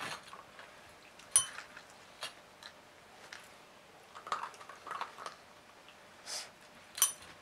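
Red desk service bell pressed by a puppy's paw, giving a short bright ring about a second in and again near the end. Soft rustles come in between.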